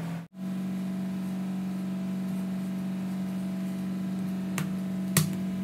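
Background music holding one steady low tone, with a few sharp clicks near the end.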